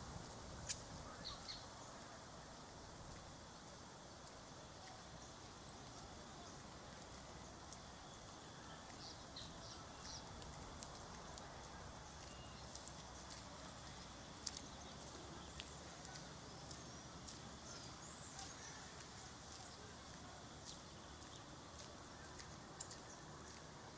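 Faint outdoor ambience: a steady low hiss with scattered sharp clicks and a few short, high bird chirps.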